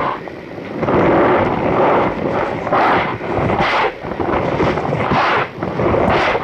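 Compressed cornstarch being crushed and squeezed by hand, a squeaky crunching that comes in a run of separate squeezes, one after another.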